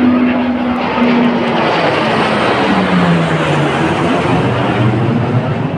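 A formation of jet aircraft, a large twin-engine jet with two delta-wing fighter jets, passing low overhead: a loud, steady roar with a low tone that slides down in pitch as the aircraft go by.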